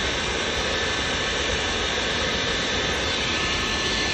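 Steady roar of air being forced through the side pipe into a homemade bucket forge, fanning its hot coal fire. The noise is even and unbroken.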